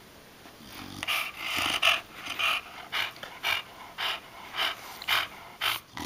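Chow Chow panting in quick, even breaths, about two a second, starting about a second in.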